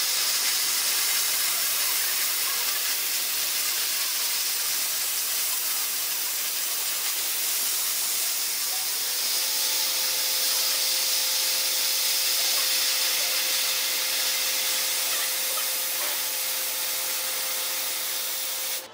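Steady hiss of assist gas jetting from a laser cutting head's nozzle as it cuts sheet metal, with a faint steady hum joining about halfway through. The sound cuts off suddenly near the end.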